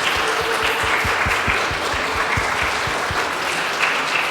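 An audience applauding steadily, with a series of low thuds close by through the first three seconds.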